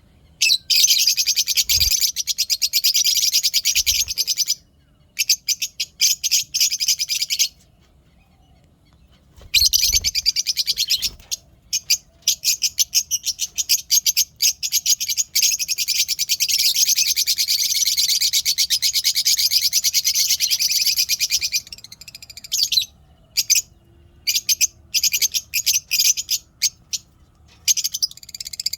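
African lovebirds chattering in fast, shrill trains of chirps, long runs of calls broken now and then by short pauses.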